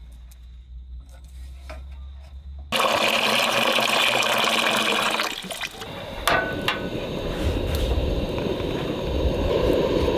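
Water poured into an aluminium camping cook pot: a loud, steady rushing splash that starts abruptly about three seconds in. A few light metal clicks follow as the pot is set on the gas stove.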